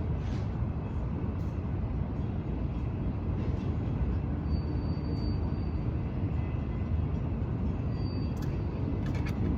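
Train going by, a steady low rumble, with a faint brief high tone twice in the middle.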